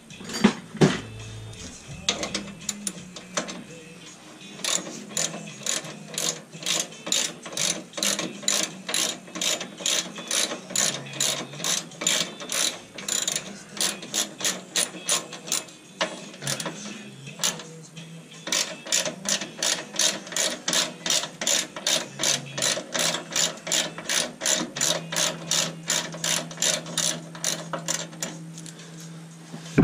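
Hand ratchet wrench clicking in quick, even back-and-forth strokes, about three a second, as a bolt is turned; the ratcheting stops for a couple of seconds about halfway through, then starts again.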